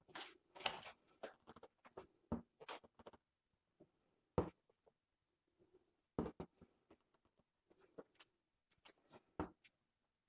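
Scattered light clicks, taps and scraping from a plastic car bumper being handled and pressed into shape by hand, with a few sharper knocks, the clearest about four seconds in and near the end.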